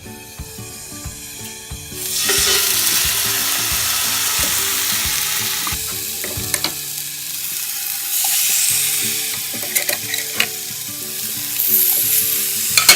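Salmon fillet sizzling skin side down in a preheated cast iron skillet, the hiss of the hot fat starting abruptly about two seconds in and running on loudly, with a few sharp ticks and pops.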